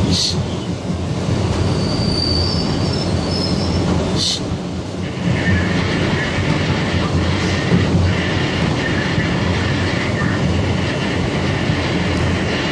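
R160B subway train running: steady rumble of steel wheels on the rails, with sharp clacks near the start and about four seconds in. A thin high wheel squeal comes in about two seconds in, and a longer, lower high-pitched squeal or whine runs from about five to ten seconds in.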